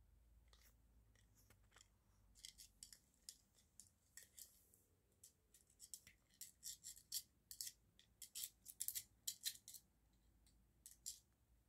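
Treats rattling and clicking inside a hard plastic treat-dispensing toy as a dog noses and paws it around. There are irregular clusters of sharp little clicks, starting about two seconds in and thickest in the middle.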